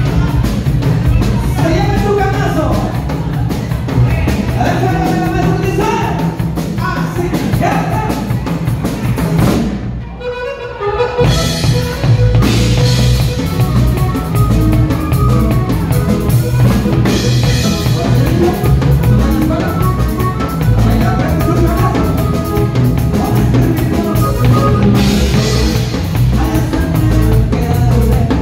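Live norteño band playing loud: accordion, twelve-string bajo sexto and drum kit, with a voice singing. The band drops out briefly about ten seconds in, then comes back in full with the drums.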